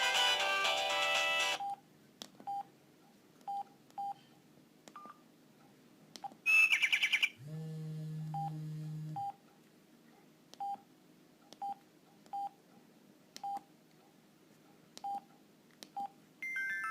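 Samsung SGH-E330 mobile phone: a ringtone melody cuts off about a second and a half in, followed by short single key beeps at irregular intervals as the phone's menu is stepped through. About six seconds in there is a brief loud warbling chirp, then a low steady buzz for about two seconds. A new ringtone melody starts near the end.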